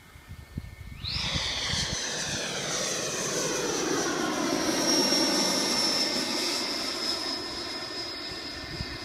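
Aircraft flying by: a rushing noise with a steady high whine that starts suddenly about a second in, the rush slowly falling in pitch.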